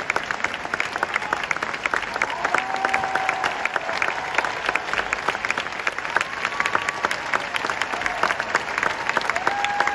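Large concert audience applauding steadily during a curtain call: dense clapping throughout, with a few short calls from the crowd rising above it.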